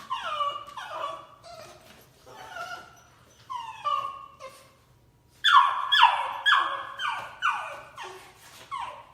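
A dog giving a string of short yelping barks, each one sliding down in pitch, with a louder, faster run of about two a second a little past halfway.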